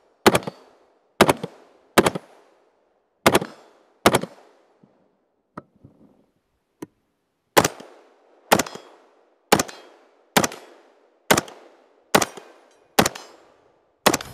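Semi-automatic 5.56 mm AR-15 carbine fired in single shots about one a second, each crack trailing off in an echo: five shots, a pause of about three seconds with two faint clicks, then eight more.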